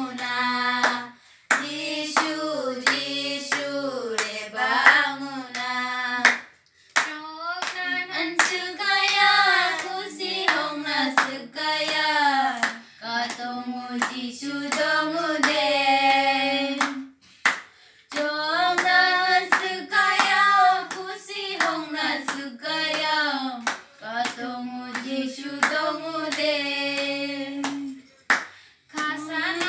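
Young voices singing a song together, holding long notes with short breaks between lines, while hand claps keep time.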